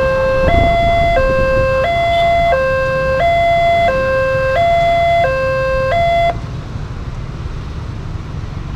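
Railway level-crossing electronic warning alarm sounding a two-tone signal, the pitch switching about every 0.7 seconds, while the barrier arm rises. It cuts off about six seconds in as the crossing reopens, leaving the steady noise of motorbike traffic moving off.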